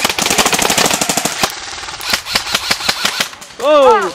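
Airsoft electric rifles firing on full auto: a fast rattle of clicking shots for about a second and a half, then scattered single shots. A person shouts once near the end, loud and falling in pitch.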